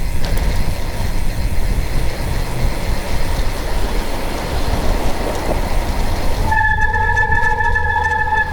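Steady rumbling vehicle noise, then about six and a half seconds in a horn begins a long, steady blast that is still sounding at the end.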